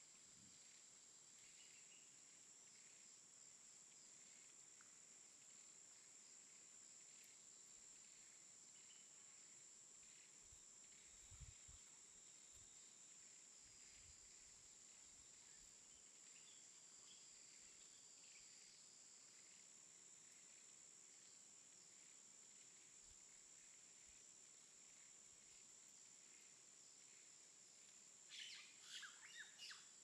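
Faint forest ambience: a steady high insect drone with scattered faint bird chirps, a soft low thump about a third of the way in, and a short cluster of louder chirping calls near the end.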